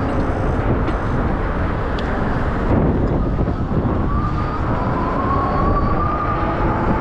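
Steady rush of wind and road noise on a handlebar-mounted camera while riding a bicycle through city traffic. A thin whine rises slightly in pitch from about four seconds in.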